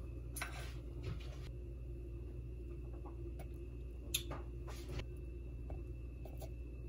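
A metal spoon scraping and tapping as sautéed mushrooms are spooned onto a steak taco: a few short scrapes and soft knocks, with a sharp clink about four seconds in, over a steady low hum.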